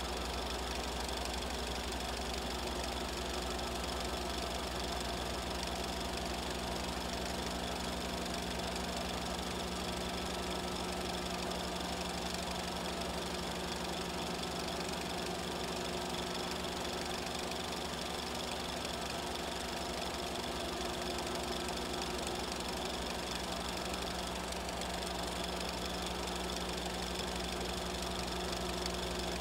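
A small machine running steadily, with a fast, even knocking and a constant hum that do not change.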